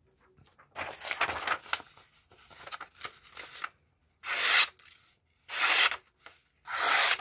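A sheet of paper rustles as it is handled, then is sliced three times, about a second apart, by a hawkbill pocketknife's carbon-steel blade. This is a paper-cutting test of the edge's sharpness.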